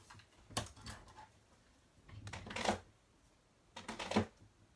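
Several groups of light plastic clicks and clatters: stamp ink pad cases being snapped shut and handled on a craft desk.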